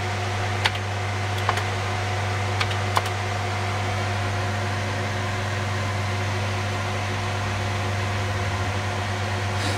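Dual-Xeon file server running with its fan assembly removed: a steady hum and whir with a few fixed tones in it, still fairly noisy. A few short clicks in the first three seconds, and a slight pulsing in the hum near the end.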